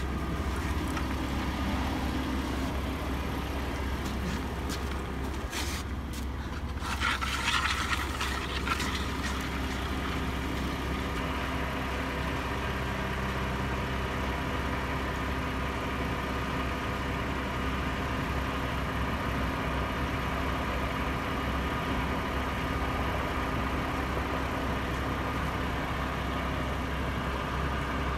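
Heavy crane truck's diesel engine idling steadily, with a short rush of noise about seven seconds in.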